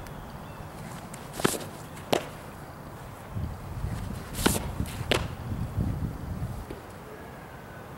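Softball pitch smacking into the catcher's mitt about halfway through, a sharp pop. Several other sharp claps of ball and glove come before and just after it.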